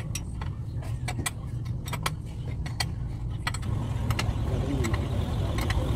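Scattered sharp metal clinks and taps of hand tools and parts against a truck gearbox's bellhousing as it is worked loose, over a steady low rumble of a running vehicle engine.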